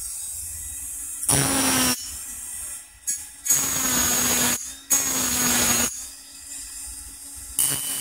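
Hand-held rotary engraving tool with a cylindrical burr cutting into a titanium knife handle scale. It grinds in four or five short bursts about a second long as the burr bites the metal, running quieter between them.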